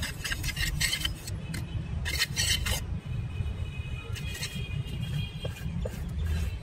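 Steel trowel scraping wet concrete in a precast baluster mold, with two clusters of short strokes in the first three seconds over a steady low rumble.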